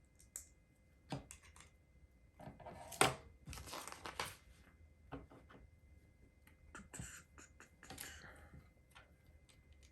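LEGO pieces being handled and pressed together: scattered light plastic clicks, with two spells of rustling and rattling, the loudest click about three seconds in.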